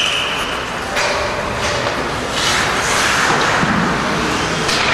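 Ice hockey game play in a rink: skates scraping on the ice under a steady hiss of arena noise, with several sharp knocks of sticks and puck hitting.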